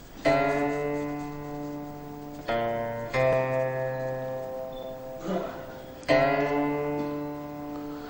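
Slow background music on a plucked string instrument: single notes or chords struck a few seconds apart, each ringing out and fading.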